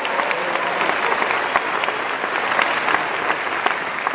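Concert-hall audience applauding steadily: a dense mass of hand claps.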